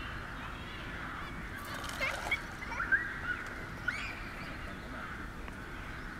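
A flock of geese honking steadily, with a cluster of louder, sharper calls about two to four seconds in.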